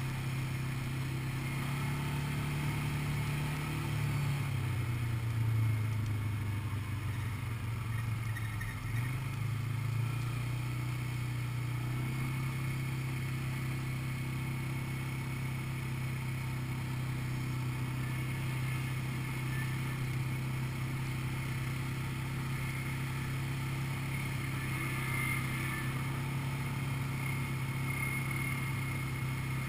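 Quad bike (ATV) engine running close by at a steady cruising speed. Its pitch drops for a few seconds about four seconds in, as the throttle eases, then holds steady again.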